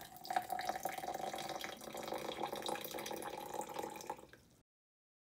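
A stream of water poured from a mug into a tall drinking glass over a tea bag, splashing steadily into the glass, then cutting off suddenly about four and a half seconds in.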